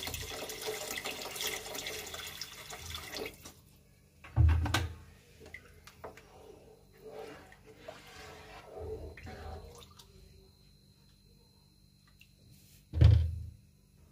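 Water pouring in a steady stream into a pot of soaked rice for about three and a half seconds, then a wooden spoon stirring and sloshing the rice and water. Two dull thumps, the loudest sounds, come about four seconds in and near the end.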